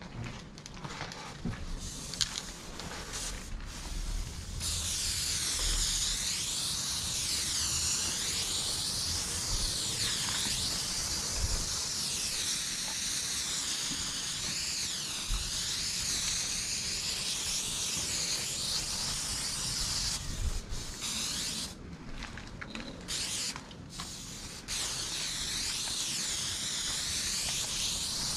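Aerosol spray paint can hissing in long, steady strokes while the outline of a graffiti throw-up is painted. The hiss starts about four seconds in and breaks off briefly a few times past the middle.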